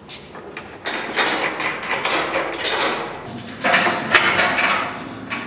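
Dense mechanical clattering and rattling from hands-on work on a wooden bell wheel being fitted in its metal bell frame, a quick run of clicks and knocks.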